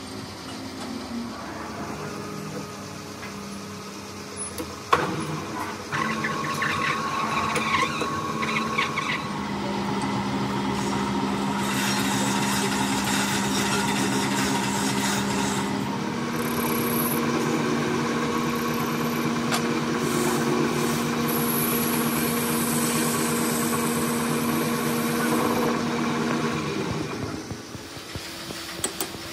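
Metal lathe switched on with a click about five seconds in, its motor and spinning chuck running with a steady hum while a gunmetal bush is turned, with hiss from the work partway through. It runs down and stops near the end.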